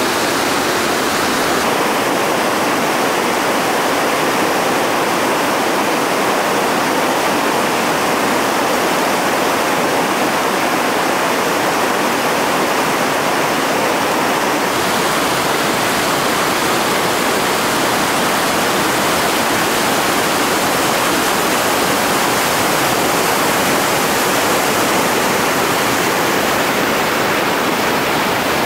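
Loud, steady rush of whitewater rapids, its tone shifting slightly about two seconds and fifteen seconds in.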